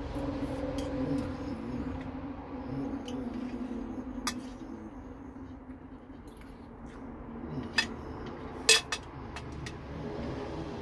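Knife and fork clinking and scraping on a plate while eating, a few sharp clinks with the loudest near the end, over a steady low hum.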